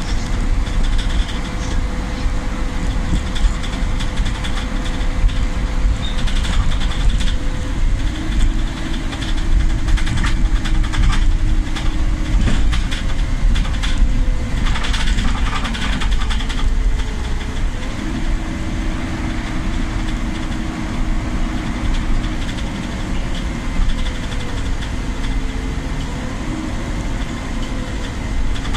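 Solaris Urbino 12 city bus heard from inside the passenger cabin: a steady engine and drivetrain rumble, with a hum whose pitch shifts now and then and occasional knocks and rattles.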